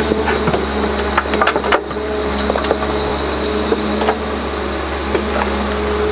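Hyundai 320LC-9 crawler excavator at work, its engine and hydraulics running with a steady hum while the steel bucket scrapes and crunches through stony soil, with a rapid scatter of knocks and cracks from stones. The sharpest crack comes a little under two seconds in.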